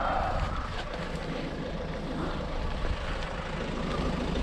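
Vehicle engine running with a low steady rumble.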